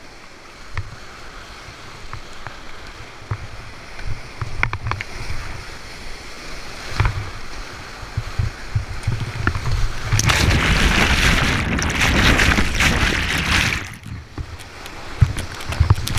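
Whitewater rapids rushing around a kayak, with low rumbling buffeting on the microphone and scattered splashes. About ten seconds in the water noise swells to a loud, churning wash as the kayak plunges into the foaming hydraulic, eases briefly, then builds again near the end.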